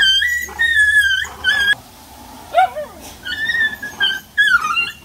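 Puppies whining in a string of high-pitched whines, some falling in pitch, with a short lower yelp about halfway through.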